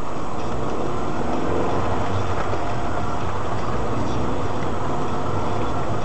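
Steady engine and road noise of slow city traffic, picked up inside a car by a dash camera's microphone.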